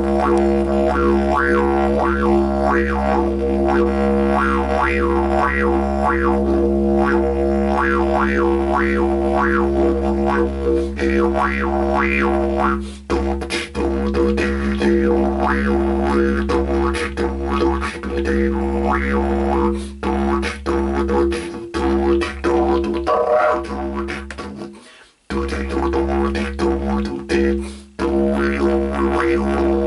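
Didgeridoo played with buzzing lips as a steady low drone, with rhythmic wah-like sweeps in tone about two a second. The drone breaks off briefly a few times, most clearly about 25 seconds in.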